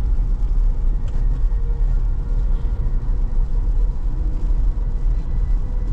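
Steady low rumble of road and tyre noise heard inside the cabin of a Tesla Model Y, an electric car, driving on a rain-soaked road.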